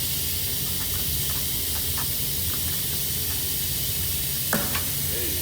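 Steady hiss over a low hum, with a few faint ticks and a small click near the end.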